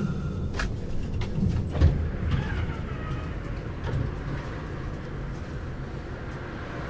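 Frankfurt S-Wagen tram standing at a stop with a low rumble, two sharp knocks about half a second and two seconds in, and a short falling whine around two and a half seconds; the sound slowly fades.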